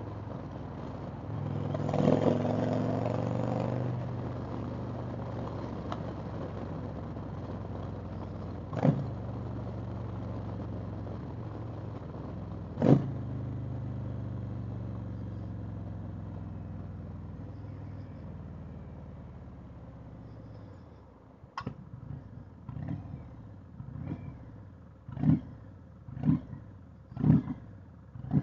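2020 Indian Chieftain Dark Horse's V-twin engine running under way, surging about two seconds in, with two sharp knocks in the middle. The engine note then falls as the bike slows, and near the end come short loud bursts about once a second.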